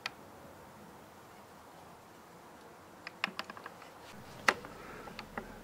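A few light clicks and taps over faint background hiss: a quick cluster about three seconds in, then one sharper click a second or so later.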